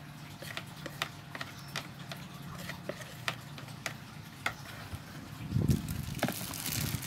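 A wet bait mix being scraped from a plastic bowl into a plastic bag with a plastic spatula: a string of light, irregular clicks and taps. Near the end comes a dull knock, then the plastic bag crinkling as it is handled.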